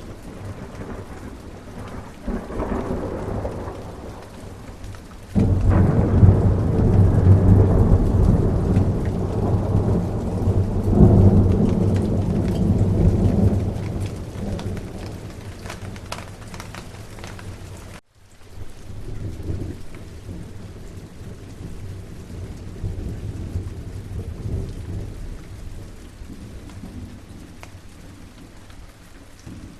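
Steady rain with a thunderstorm. A long roll of thunder breaks sharply about five seconds in, rumbles for several seconds and then fades. The sound drops out for a moment a little past halfway, then rain continues with low distant rumbling.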